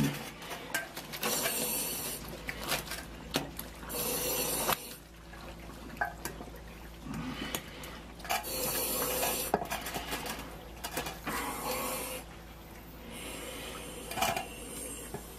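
Thick slurry sloshing and splashing around a person in a protective suit moving in it, in several short bursts of under a second, with scattered clicks over a steady low hum.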